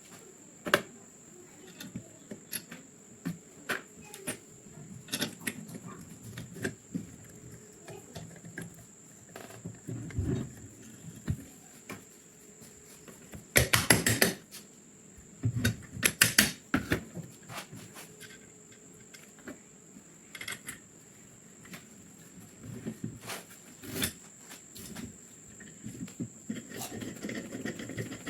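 Metal parts of a pistol being handled and fitted together: scattered clicks and clinks, with two quick runs of sharp metallic clicks about halfway through. A thin steady high tone runs underneath.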